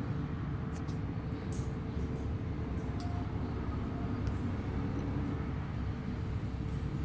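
Steady low background rumble with a faint constant hum, and a few faint short ticks in the first few seconds.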